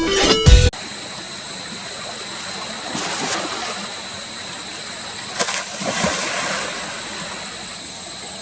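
Background music cuts off suddenly under a second in. Then water splashes twice, about three seconds in and again around five and a half to six and a half seconds, over a steady watery hiss with a faint high steady whine.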